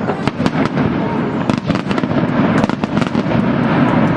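Fireworks going off in a dense, continuous barrage: many sharp bangs and crackles a second over a steady rumble.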